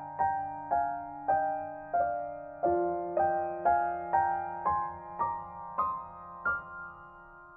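Background music: soft piano playing a slow, even melody, about two notes a second.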